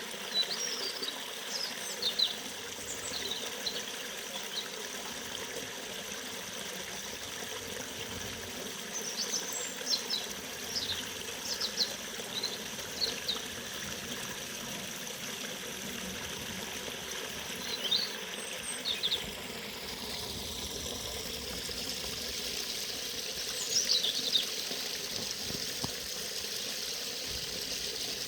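Forest river running steadily, with birds giving short high chirps in scattered bursts over the water.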